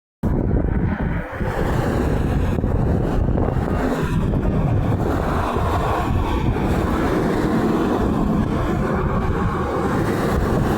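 Highway traffic passing close by, a steady rush of tyre and engine noise with wind on the microphone; no horn sounds. The sound drops out for a split second at the very start.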